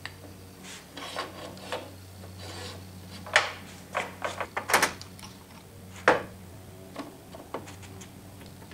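Steel lead screw of a South Bend 9-inch lathe being slid into place through the apron and its bearings. There is light metal scraping at first, then several sharp metal clinks and knocks from about three seconds in.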